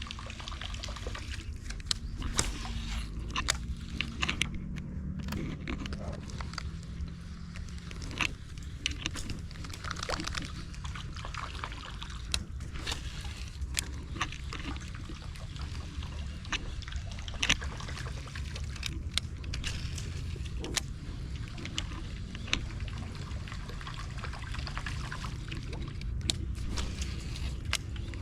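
Water splashing and trickling, with many scattered sharp clicks over a steady low rumble.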